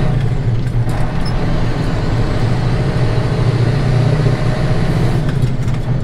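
Ford 8000 truck engine running steadily while driving, heard from inside the cab as a low, even drone.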